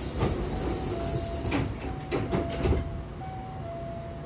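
Hankyu 8000-series commuter train's doors closing. A loud hiss of air from the door engines fades out, then a few clunks sound as the doors shut, while a two-note door chime repeats three times.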